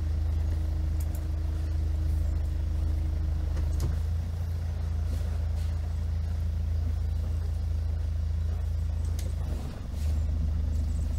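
Motorboat engine running steadily, heard on board as a low drone. The level dips briefly near the end, then picks up again.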